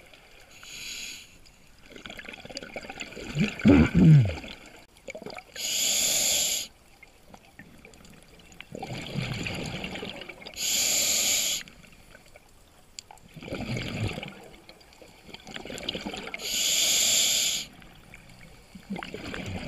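Scuba diver breathing through a regulator underwater: three hissing inhalations about five to six seconds apart, each followed by a gurgling rush of exhaled bubbles. The loudest bubble burble comes about four seconds in.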